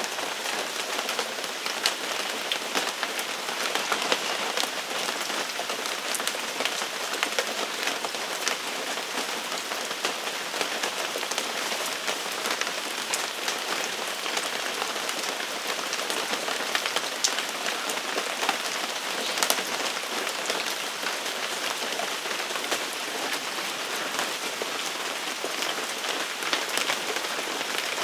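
Steady rain falling on a surface, a constant hiss with many sharp ticks of single drops.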